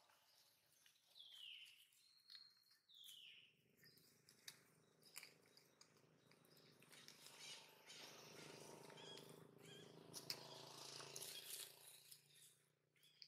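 Near silence with faint sounds: two short, high chirps falling in pitch, about one and three seconds in. Then scattered soft clicks and a faint low hum from about seven seconds in.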